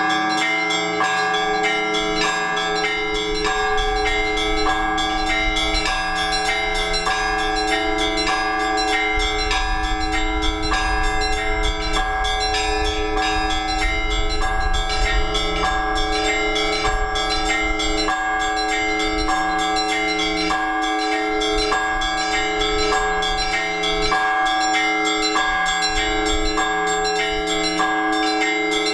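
Orthodox church bells rung together by a bell ringer in a fast, steady, repeating pattern, with the deeper bells' tones sustaining beneath the quick strikes of the smaller bells. It is the ringing that calls the faithful to the all-night vigil.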